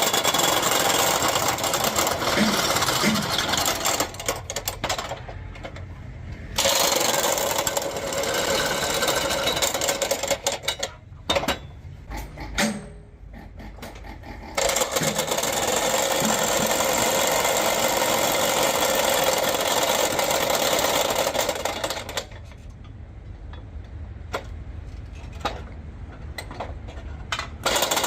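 A loud, rapid mechanical power tool runs in stretches of several seconds, stopping and starting again about four times. A lower, quieter machine rumble carries on between the stretches.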